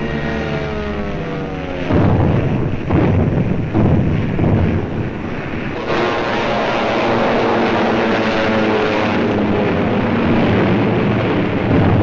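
Propeller aircraft engines on an old film soundtrack. A falling drone in the first two seconds gives way to three heavy bangs about a second apart, then a steady engine drone from about halfway through.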